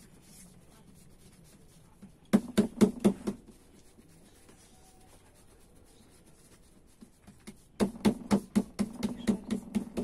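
Hands patting corn masa dough flat into a tortilla on a leaf over a wooden table: a short run of half a dozen slaps a couple of seconds in, then a steady patting of about five strokes a second from near the end.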